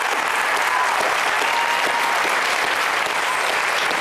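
Studio audience applauding, a dense, steady clapping that holds at a loud level.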